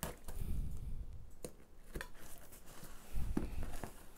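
Blade cutting through clear plastic packing tape on a cardboard box: scattered scrapes and sharp clicks, with a couple of dull bumps as the box is handled.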